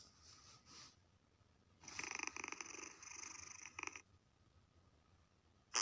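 Cat purring: a rapid, rattly pulsing that starts about two seconds in and lasts about two seconds.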